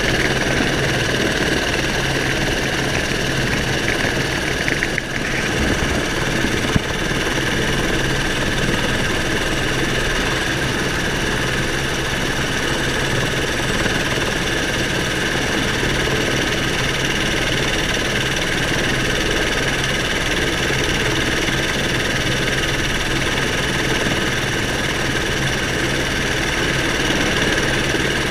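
Helicopter's turbine engine and rotor running steadily at ground idle, heard from inside the cockpit, with a whine of many steady tones. A single short click comes about seven seconds in.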